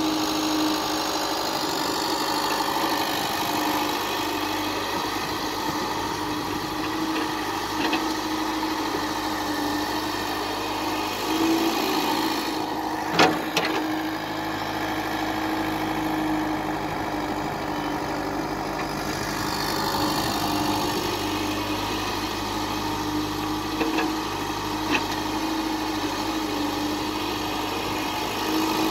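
Caterpillar E70 tracked excavator's diesel engine running steadily as it digs and swings loads of sand, with a steady tone throughout. A few short sharp knocks come through, the loudest two about 13 seconds in.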